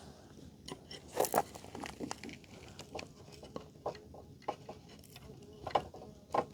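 Irregular small clicks and crackles of hands and pliers working on plastic zip ties, pulling off an old zip-tie remnant. The sharpest clicks come about a second in and twice near the end.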